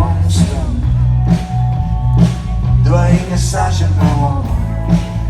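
Rock band music: bass and drums keeping a steady beat of about one stroke a second, under melodic guitar or voice lines.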